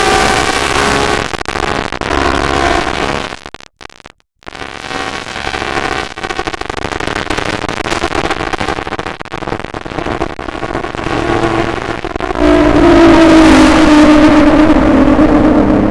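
Outdoor tornado warning siren sounding, several steady tones at once, broken off by a brief gap about four seconds in. Near the end it comes back louder, its pitch slowly falling.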